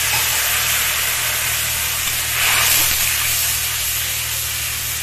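Water boiling and sizzling hard in very hot mustard oil in a kadai, just after being poured in: a loud, steady hiss that swells briefly about halfway through.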